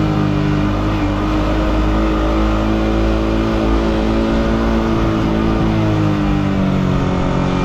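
Yamaha R15M's single-cylinder 155 cc engine through its stock exhaust, running at steady riding revs and easing off a little near the end as the throttle closes, over a low wind rumble.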